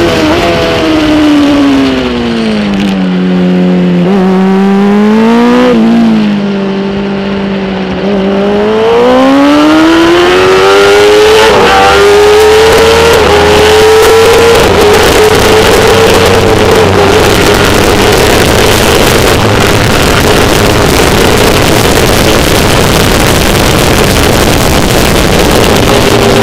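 Kawasaki ZX-10R inline-four superbike engine recorded onboard. The revs fall over the first few seconds as the bike slows for a corner, stay low for a few seconds, then climb steadily back up and hold high at racing speed. Wind rush grows louder through the second half.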